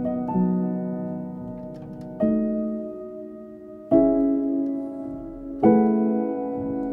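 Background music: slow piano chords, a new one struck about every one and a half to two seconds and left to ring and fade.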